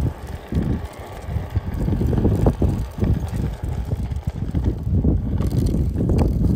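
Wind buffeting the phone's microphone while riding a Onewheel over pavement: a loud, uneven low rumble that swells and dips.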